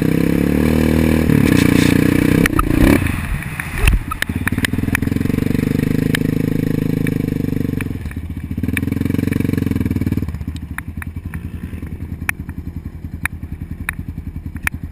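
ATV engine revving up, dropping back and running at steady throttle, then settling into a lower, pulsing idle about ten seconds in, with scattered light clicks.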